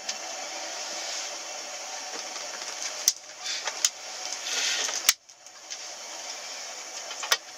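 Steady hiss with a few sharp clicks and knocks scattered through it; the hiss cuts out briefly about five seconds in.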